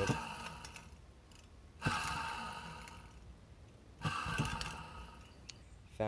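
Small vacuum-cleaner universal motor whirring twice, each time starting suddenly with a click and dying away over about a second and a half. It is being run as a generator with its armature powered and a field winding as the output, a hookup that gives almost no output.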